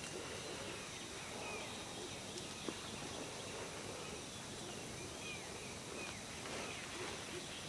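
Tropical forest ambience: a steady insect drone with two thin high tones, and short bird chirps scattered through it.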